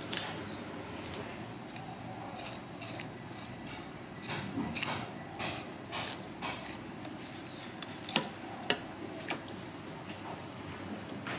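Food-stall clatter: scattered sharp clicks and knocks, loudest about 8 to 9 s in, over a steady background hiss. A short high rising chirp sounds three times, near the start, about 2.5 s in and about 7.5 s in.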